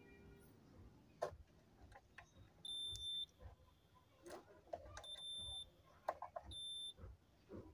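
Digital multimeter in diode-test mode giving short, faint high-pitched beeps, three times about two seconds apart, as the probes are put on a diode on the amplifier board. Light clicks of the probes touching the board come in between.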